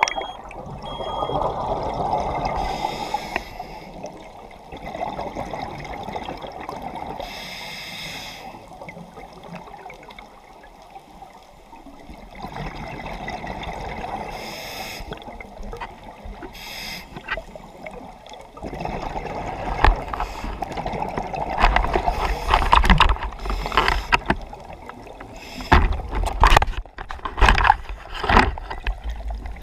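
Underwater sound of a diver's breathing: exhaled bubbles gurgling up in a burst every few seconds. From about two-thirds of the way in, louder low rumbling with sharp clicks and knocks as the spear and a lionfish containment tube are handled.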